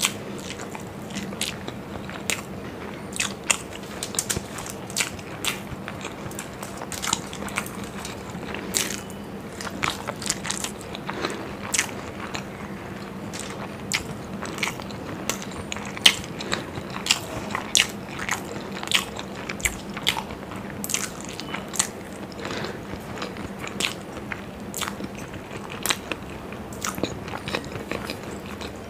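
Close-miked chewing of masala-fried hard-boiled eggs, with frequent sharp wet mouth clicks and smacks, over a faint steady hum.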